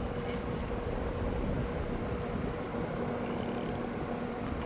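Happy Home window box fan running cold, just after start-up: a steady rush of air from the blades with a steady motor hum.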